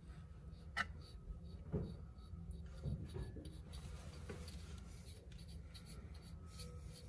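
Faint handling noises as a new CV axle's outer joint is worked into position by hand: a few light knocks and some rubbing of metal parts, over a low steady hum.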